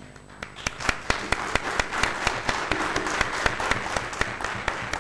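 Applause from a crowd, made of many separate sharp hand claps, swelling within the first second after the music stops.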